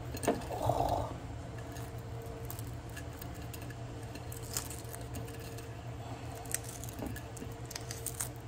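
Hard-boiled egg being peeled by hand: small scattered crackles and clicks as bits of shell break away, over a steady low hum.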